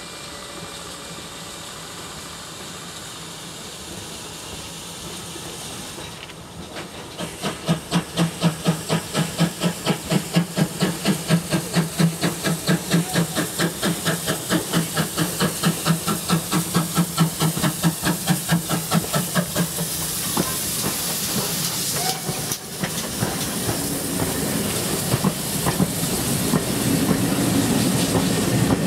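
GWR 57xx-class pannier tank steam locomotive 5764 working under power, its exhaust beats chuffing evenly at about three a second over a steady hiss of steam. The beats start a few seconds in and stop after a sudden break, leaving the hiss of steam.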